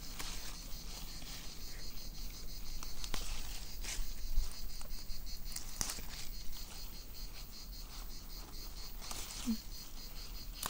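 Steady high-pitched chirring of insects, with a few brief rustles of grass and leaves being handled.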